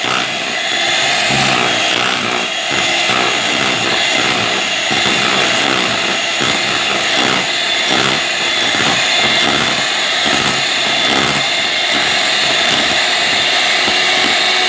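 Electric hand mixer running steadily, its beaters mixing bun batter in a bowl.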